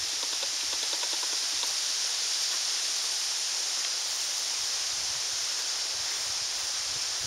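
Steady high-pitched outdoor hiss, like wind in trees, with faint scattered footsteps as the camera operator walks.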